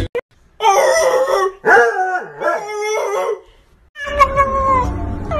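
A dog howling in drawn-out, wavering calls that rise and fall in pitch, for about three seconds. About four seconds in, a steady pitched cat's meow begins.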